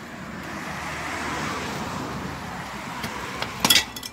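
A road vehicle passing by, its road noise swelling and fading, followed near the end by a brief, sharp metallic clatter that is the loudest sound.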